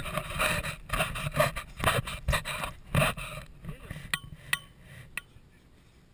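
Snow crunching and scraping with rustling close to the camera for the first three seconds, then three sharp clicks, the first two with a short metallic ring, after which it goes quieter.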